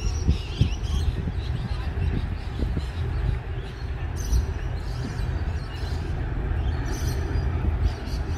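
Low, steady rumble of a freight train rolling across a steel truss rail bridge.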